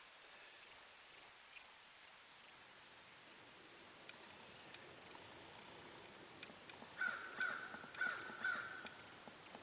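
Insects chirping: a steady high trill under regular short chirps, roughly two a second. A few faint short calls join about seven seconds in.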